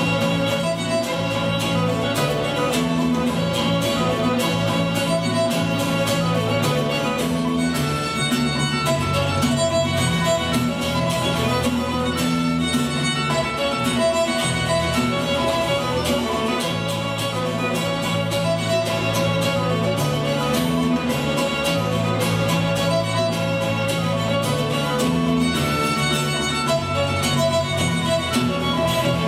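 Instrumental music led by a fiddle with guitar accompaniment, played continuously with a steady, lively beat.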